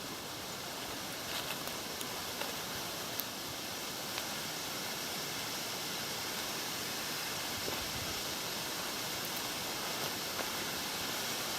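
Water running down a small rock cascade: a steady hiss that grows gradually louder, with a few faint clicks.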